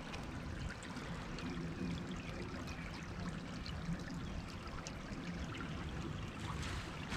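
Shallow creek trickling steadily over a sandy, stony bed, under a steady low rumble.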